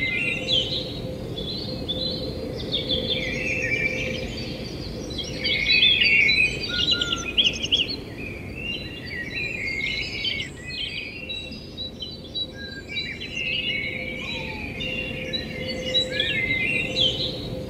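Many small birds chirping and twittering in quick overlapping calls, over a steady hum and low background noise.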